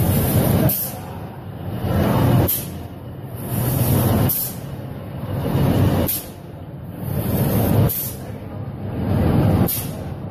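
SQJ-2000 paper tube recutter running its cutting cycle about every two seconds: a swelling mechanical whir as each cut is made, ending each time in a short sharp hiss of air from the pneumatic valves.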